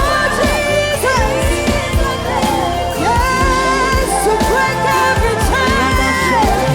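Live gospel praise and worship music: a band with drums and bass playing under sung melody lines.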